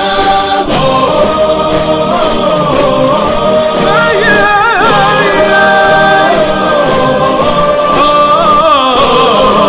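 Background music: an Arabic nasheed sung by voices in harmony, holding long notes with a few ornamented, wavering runs and no clear words.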